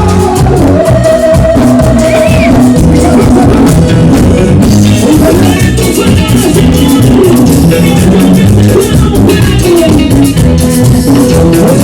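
Loud live Latin dance-band music, an instrumental stretch with a steady beat from bass and percussion and held melody notes over it.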